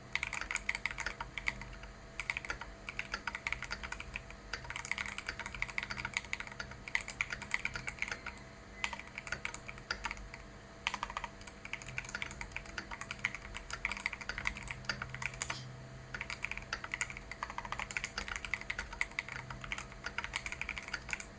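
Typing on a Keydous NJ80 mechanical keyboard with Feker Holy Panda tactile switches on an aluminium plate and stock keycaps: fast runs of keystrokes with brief pauses and a few louder single strokes, likely the space bar or other large keys.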